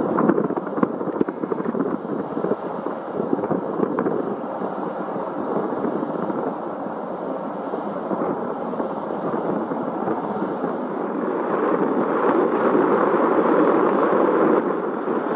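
Aircraft engine noise heard from the ground at an airport: a steady rushing rumble that grows louder about eleven seconds in, as the aircraft powers up or comes nearer.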